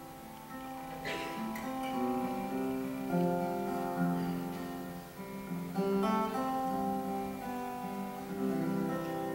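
Solo acoustic guitar playing the song's closing outro, a mix of picked notes and light strums that ring on between attacks.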